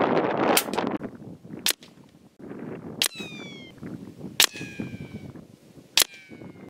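About five sharp single cracks, roughly a second to a second and a half apart, from a .30-calibre FX Maverick air rifle firing FX hybrid slugs at a target while checking its zero. Gusty wind rushes over the microphone at the start, and the last three cracks each trail a short falling whine.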